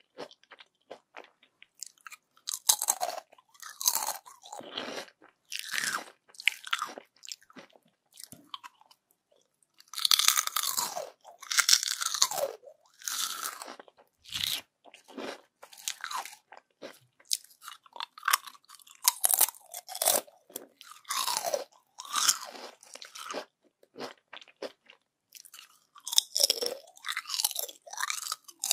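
Crispy yam chips being bitten and chewed close to the microphone: sharp, crackling crunches that come in irregular bursts about a second apart, with short pauses between mouthfuls.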